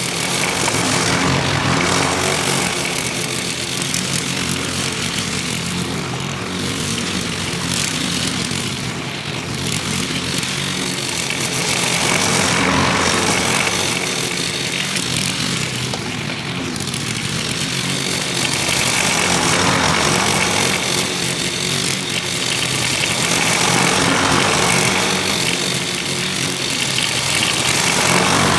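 Walk-behind bagging lawn mower's small engine running steadily while cutting thick grass, swelling and fading every few seconds as it works back and forth across the lawn.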